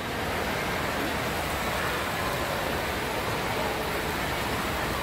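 Steady rush of water running down a small water slide into its splash pool.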